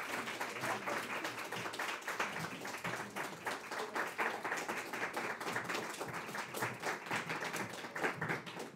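Audience applauding: many people clapping at once in a dense, even patter that thins out and dies away at the very end.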